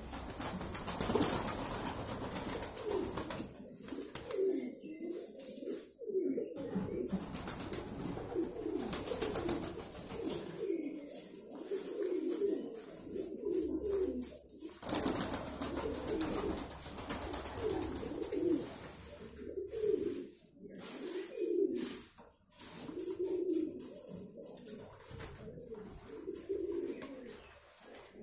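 Andijan pigeons cooing, several birds calling over one another in a near-continuous run of low, wavering coos with only brief pauses.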